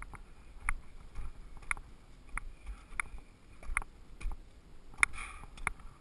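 Footsteps of a climber in ski boots on steep rock and scree: a sharp click about every two-thirds of a second, with a louder click and a short scrape about five seconds in.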